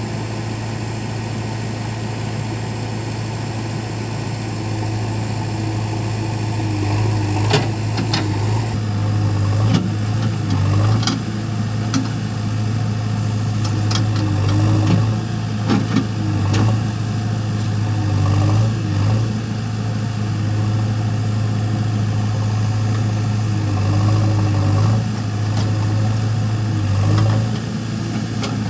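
Diesel engine of a backhoe loader running steadily, with scattered knocks and clanks starting about 7 seconds in as it works loading mud.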